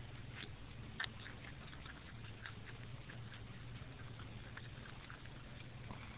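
Groundhog chewing a raw carrot close up: irregular crisp crunching bites, with one sharper crunch about a second in.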